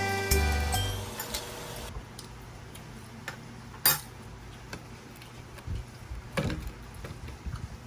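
Background music fading out over the first two seconds, then scattered light clinks and taps like cutlery and dishes being handled, the sharpest about four seconds in.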